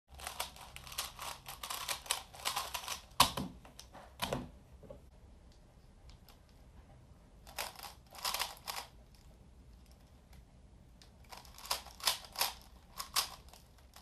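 3x3 speed cube being turned fast by hand: rapid plastic clicking and clatter in three bursts, with a sharp knock about three seconds in.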